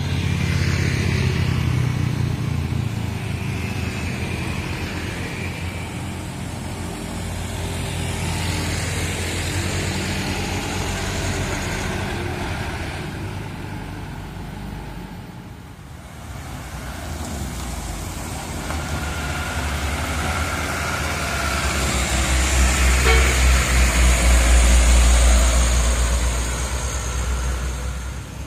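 Road traffic on a hill road: motorcycles and trucks passing, with the engine of a heavy truck running close by. The low rumble dips briefly past the middle, then is at its loudest near the end.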